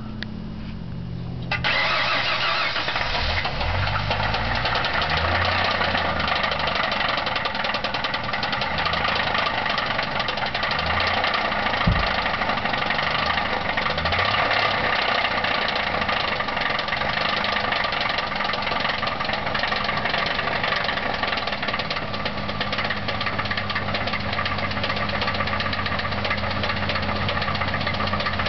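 Ford Thunderbird's 3.8-litre V6 cranking and catching about a second and a half in, then running with a loud rapid rod knock from a worn connecting-rod bearing. Engine speed rises and falls unevenly for the first half before settling, and a single sharp bang comes about twelve seconds in.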